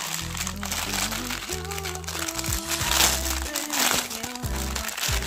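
Clear plastic zip bags crinkling and rustling as they are handled and shuffled, a dense run of irregular crackles, over background pop music.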